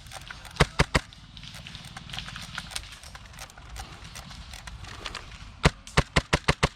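Airsoft gun shots: three sharp cracks in the first second, then a rustling shuffle of movement, then a fast string of shots, about seven a second, starting near the end.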